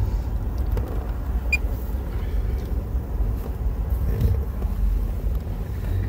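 Steady low rumble of an idling car heard from inside its cabin.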